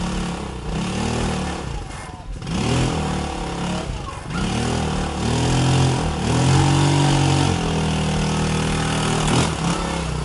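Sport go-kart engine revving up and down repeatedly, its pitch rising and falling several times.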